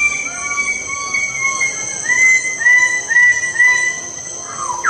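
Bird-of-paradise calls: a run of short, repeated pitched notes, about two a second, each rising at its start, over a steady high hiss. A louder call sliding down in pitch comes near the end.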